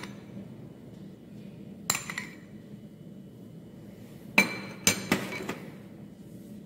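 Metal spoon clinking as tomato sauce is scooped and spread onto burger buns: one light clink about two seconds in, then a quick run of three or four clinks a couple of seconds later.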